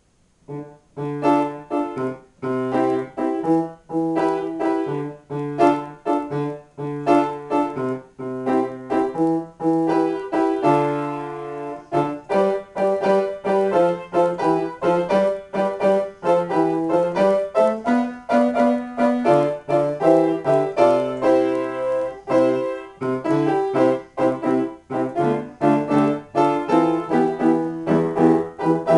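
Acoustic grand piano played solo in free improvisation, starting about a second in out of silence: chords low in the keyboard under a melody in the middle and upper range.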